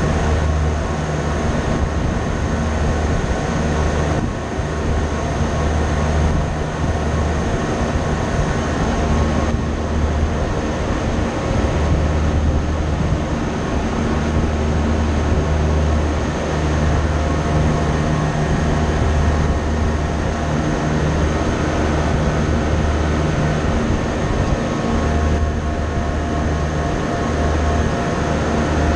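Steady, loud low drone of running machinery, with a few faint steady tones above it.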